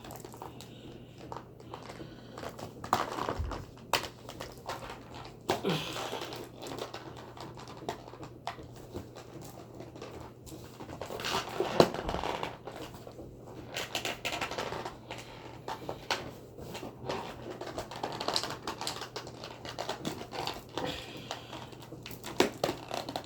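Hands working at a toy's cardboard and plastic packaging to free the figure: irregular crinkling, scraping and clicking.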